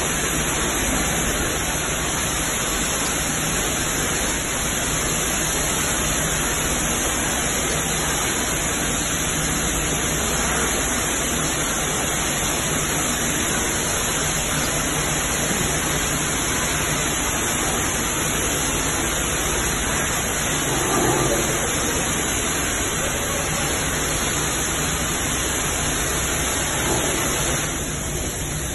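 High-pressure water jet from a hose spray gun hissing steadily as it sprays down a sealed stainless steel touch panel PC and the steel work tables around it.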